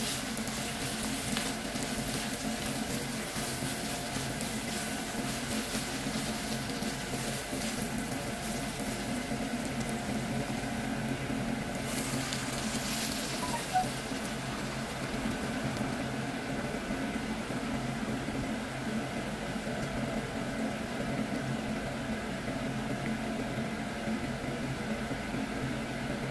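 Rice and meat sizzling in a frying pan over a steady low hum. About twelve seconds in, hot water is poured into the pan, with a single clink, and the pan then simmers.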